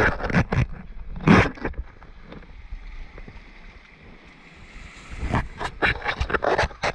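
Sea surge washing into a rocky shoreline tide pool, with clusters of sharp knocks close to the microphone near the start and again over the last two seconds.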